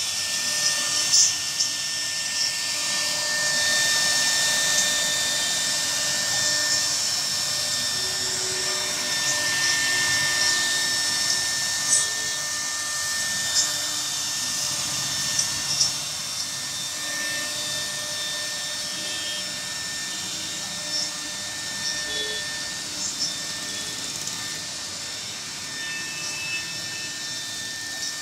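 CNC router spindle running with a steady high whine as the bit carves a wooden relief panel, with scattered sharp ticks from the cutting.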